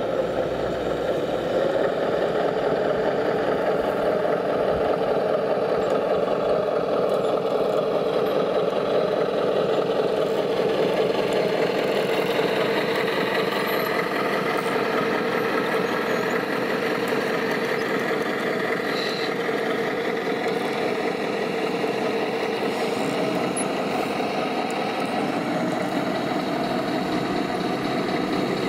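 Scale RC trucks running: a steady engine-like drone, with slight slow rises and falls in pitch.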